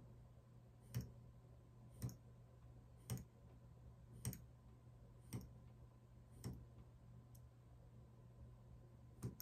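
X-Acto knife scoring the bark of a bassoon reed cane held on a PVC pipe: a faint short click with each stroke, about one a second, with a longer gap near the end before a last click.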